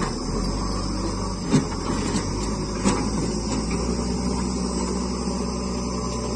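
Diesel engine of a JCB 3DX backhoe loader running steadily as the machine drives off across the field, with two sharp knocks about a second and a half apart in the first half.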